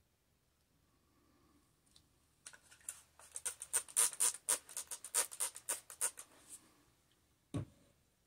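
Quick spritzes from a spray bottle of alcohol misting over fresh epoxy resin in silicone molds to help the resin flow: a rapid run of short hissing sprays, about four a second, lasting roughly four seconds. A single dull thump follows near the end.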